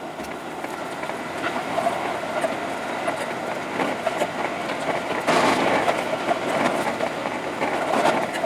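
Seibu Shinjuku Line electric train running, with steady wheel and rail noise that grows louder about five seconds in.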